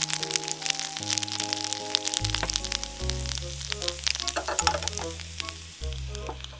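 Popcorn kernels frying in hot oil on a waffle maker's grid plate, a steady sizzle with fine crackles that dies down near the end.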